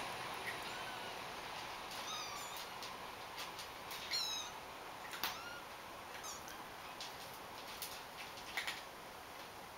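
Young kittens mewing a few times in short, high-pitched cries, with scattered light clicks between them.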